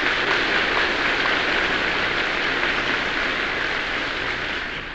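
Large audience applauding steadily, the clapping dying down near the end.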